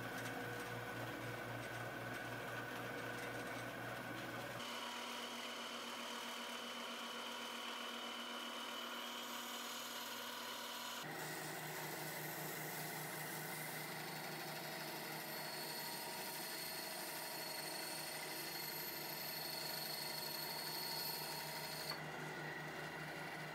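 Ryobi 9-inch band saw running steadily as a board is fed through its blade. Its hum shifts abruptly in pitch and tone about five seconds in and again about eleven seconds in.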